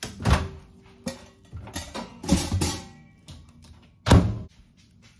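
Plastic grocery bags rustling and things being handled and set down, with a loud thump about four seconds in.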